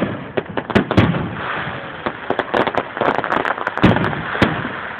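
Fireworks going off: an irregular, rapid string of sharp bangs and crackles, with the loudest bangs about a second in and near the end.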